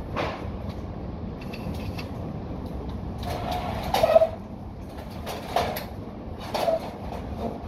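Steady low rumble of a high-rise construction site, with several short bursts of mechanical noise from window-framing work. The loudest burst comes about four seconds in.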